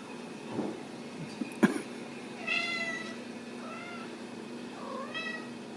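Ragdoll kittens meowing: three short, high-pitched mews, about two and a half, three and a half and five seconds in. A sharp knock about a second and a half in is the loudest sound, and a steady low hum runs underneath.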